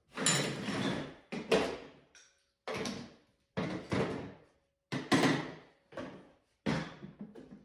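Hand tools and a cordless drill set down one after another on a plastic folding table: about eight separate clunks and clatters, each dying away quickly.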